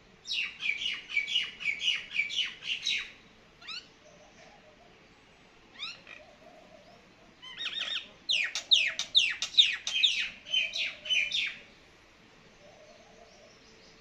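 Common myna calling: quick series of falling notes, several a second, in two bouts, one about three seconds long at the start and a longer one from about eight to eleven and a half seconds in, with a few single notes between.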